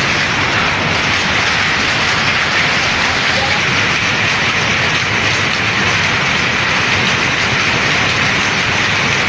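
Textile weaving machinery running: a loud, dense, steady clatter with no pause.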